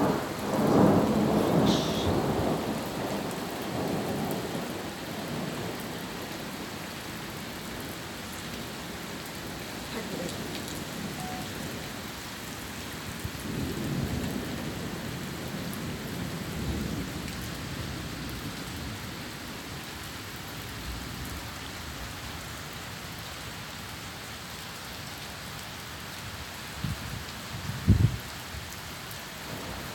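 Thunderstorm: rain falling steadily, with rolling thunder at the start and again about halfway through. A short, sharp thump near the end is the loudest sound.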